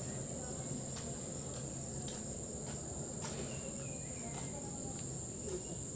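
Steady, high-pitched trill of insects, with a few faint clicks now and then.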